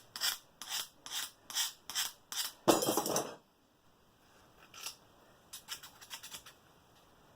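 Scissors worked in a quick series of short scraping strokes, about two or three a second for some three seconds, the last stroke longer, then a few fainter ones a little later. The blades are being honed at the tip to restore a dull pair's cutting edge.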